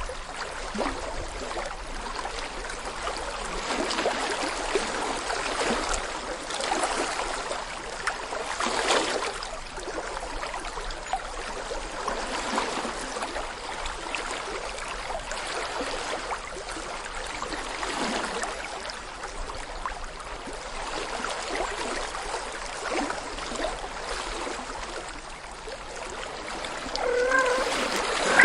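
Water burbling and splashing steadily, with many small bubbly crackles. Near the end a cat starts to meow.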